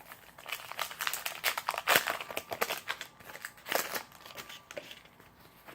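Crinkling and tearing of a Topps Heritage trading-card pack wrapper being opened by hand: a run of crackles, loudest about two seconds in and again near four seconds.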